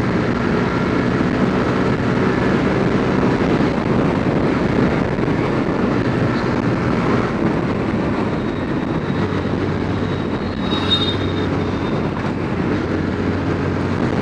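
Motorcycle running at highway speed, about 60 to 85 km/h: a steady drone of engine, wind and tyre noise, with a truck passing close alongside near the end.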